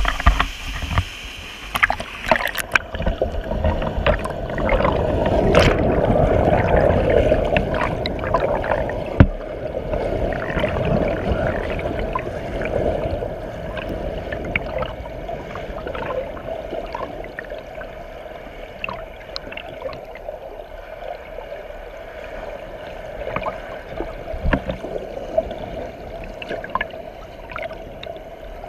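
Rushing whitewater of a waterfall, heard through a camera that goes underwater about three seconds in: a muffled, churning rush with gurgling and many small clicks and knocks. It is loudest a few seconds after going under and eases off toward the middle.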